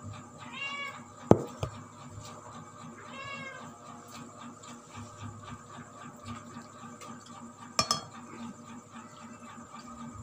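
A cat meowing twice in the first few seconds, each a short call that rises and falls in pitch. A sharp knock about a second in is the loudest sound, with a second knock later on.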